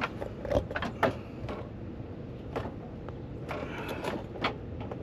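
Scattered light clicks and knocks of parts and hand tools being handled under a car, about eight in five seconds, over a low steady background.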